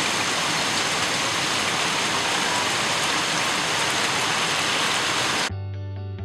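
Heavy rain pouring down onto rooftops and a street, a steady hiss. About five and a half seconds in it cuts off suddenly and music with a steady bass note takes over.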